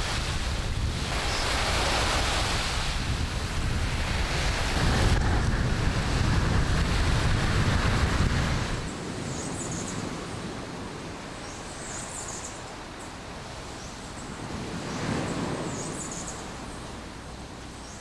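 Steady wind and surf noise, with wind buffeting the microphone, for about the first half; about halfway through it drops to a quieter outdoor wash, with a few faint high chirps.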